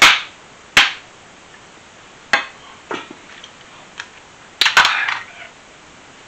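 Cookware clinking: a utensil knocking on a frying pan and a glass lid set on the pan, a series of about six sharp clinks and clatters, with a short cluster of them a little before the end.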